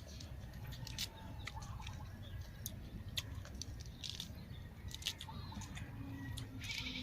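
Birds chirping in short calls, over a steady low rumble, with scattered sharp clicks and crackles.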